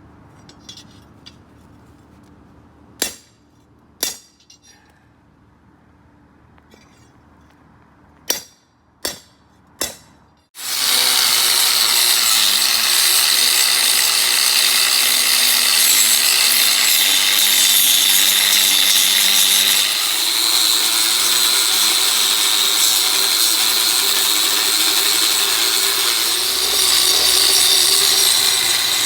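A few sharp metallic knocks, then, about ten seconds in, an angle grinder with a flap disc starts and grinds steadily with a high whine against the forged steel sword blade, cleaning up its surface.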